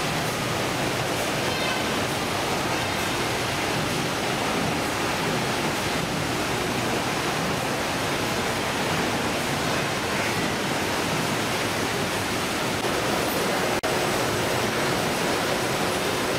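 Steady rushing noise of fish-processing machinery and running water, with no distinct strokes or tones. It cuts out for an instant about 14 seconds in.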